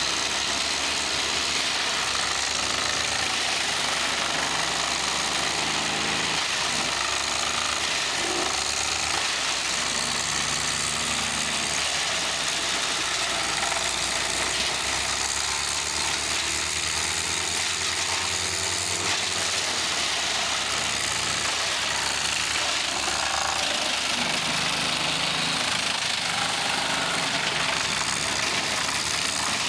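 Vermeer BC1250 wood chipper running steadily while chipping pine: a loud, dense, unbroken clatter of the engine and the cutting.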